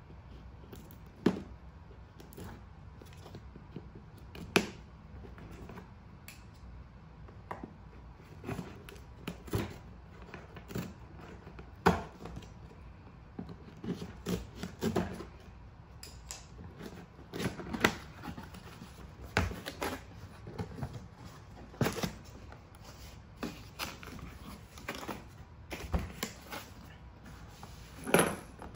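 Cardboard box being unpacked by hand: irregular clicks, scrapes and knocks as packing tape is picked and pulled off and the cardboard flaps are handled, with a few sharper knocks standing out. Near the end the box is open and its fabric contents are handled.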